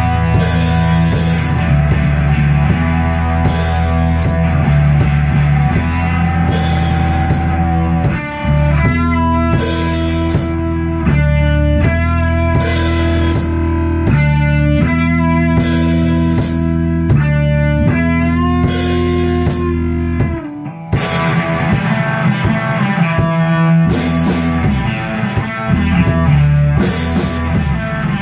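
A rock band playing live on drum kit, electric bass and guitar, with held guitar notes over the bass and recurring cymbal crashes. About three-quarters of the way through, the band stops for a moment, then comes back in.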